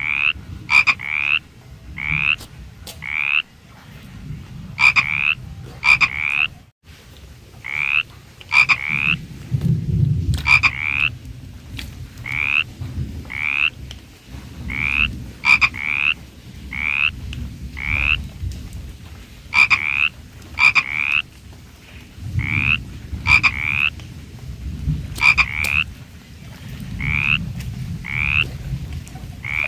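Frog calling: short, high, rising croaks, often in quick pairs or threes, repeated about every second or two, over a low rumble.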